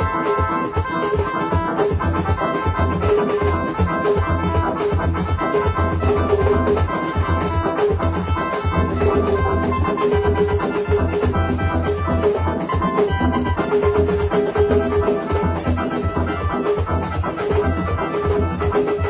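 Latin dance music with a steady drum beat and sustained melodic chords.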